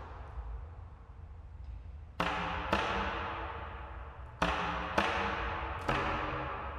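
Contrabass clarinet giving five short, sharp percussive notes, two and then three, each one ringing on and dying away slowly in the long echo of a large domed hall.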